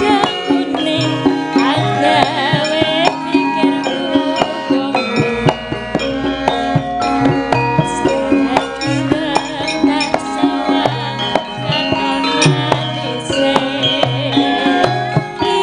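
Javanese gamelan playing an instrumental passage: many held metallophone tones, with frequent kendang drum strokes keeping time.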